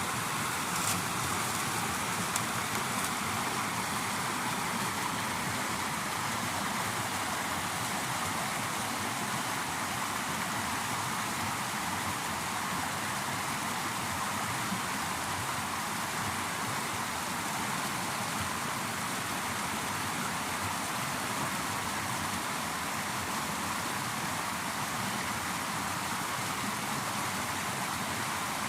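Water rushing steadily over small river waterfalls, an even continuous splashing.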